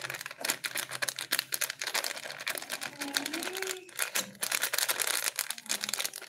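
A plastic packet crinkling and crackling as it is handled and torn open, a dense run of small crackles and clicks.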